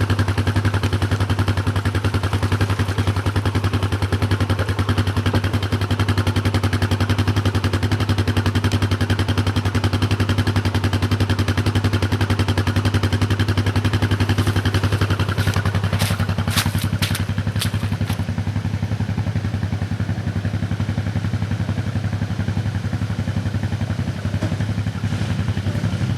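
ATV engine running steadily at an even speed. A short run of sharp clicks comes about two-thirds of the way through.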